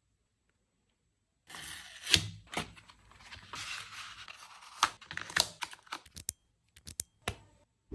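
Packaging being torn and handled during an unboxing. After a short silence there are a few seconds of tearing and rustling with sharp clicks and snaps, then scattered clicks and taps.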